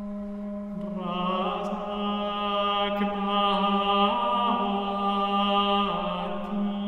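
Background music: a steady low drone, with a chant-like melody over it that enters about a second in and falls away near the end.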